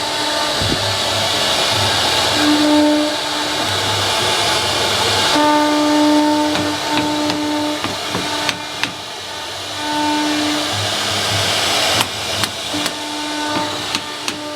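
Wood CNC router running a cut: a steady hiss from the spindle and bit in the wood, with humming tones that switch on and off every second or two. Several sharp ticks come in the second half.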